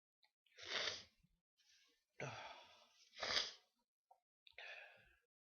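A person's breathing in four short, breathy huffs, the recovery after a sneeze.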